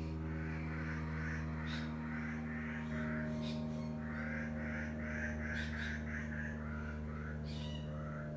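A bird calling in runs of quick repeated notes, over a steady low hum.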